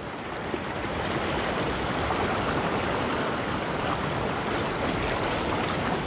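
Shallow river running fast over rocks: a steady, even rush of water.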